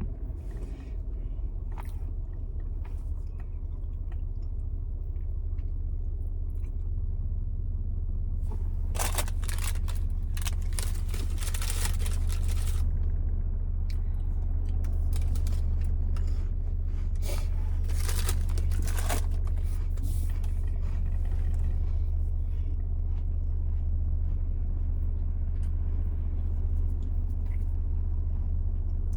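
Steady low road rumble of a moving car heard from inside the cabin, with two clusters of sharp crackles about a third and two-thirds of the way through.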